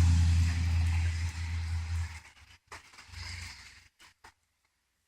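A vehicle going by, a steady low engine hum with tyre noise that fades away over about two seconds, followed by a few faint clicks.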